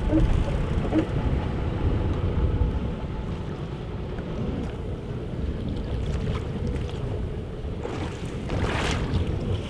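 Wind buffeting the microphone over ocean water sloshing against the boat's hull, with a faint steady hum underneath. About nine seconds in comes a brief rush of splashing water.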